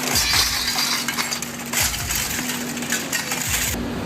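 Industrial shredder crunching scrap metal, with dense metallic clinking and crackling over a steady low hum and a dull thump about every two seconds. The sound changes abruptly near the end.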